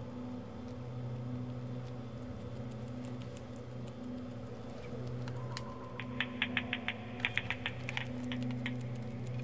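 Bat echolocation calls made audible by a bat detector as rapid dry clicks, sparse at first and then in dense, louder trains from about six seconds in; the bat keeps calling while it chews an insect. A steady low electrical hum runs underneath.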